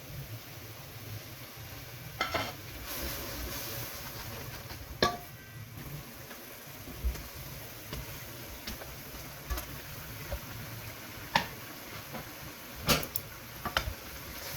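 A spoon stirring food that sizzles in a cooking pot, under a steady hiss. There are several sharp clinks of the spoon against the pot.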